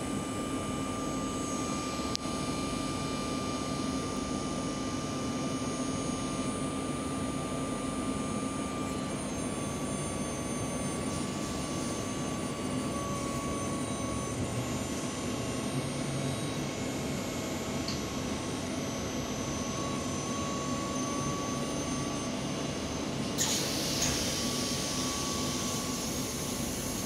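City bus idling at a stop: a steady engine hum with a thin high whine. About 23 seconds in, a loud hiss of compressed air lasting a few seconds as the pneumatic doors open.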